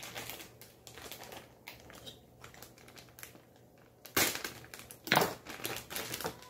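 Plastic bag of shredded mozzarella cheese crinkling as it is pulled open and handled, with two louder rustles about four and five seconds in.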